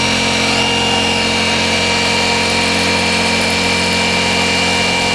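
Red Skil corded jigsaw running steadily as its blade cuts into a sheet of HDPE plastic, a constant motor hum with a steady high whine.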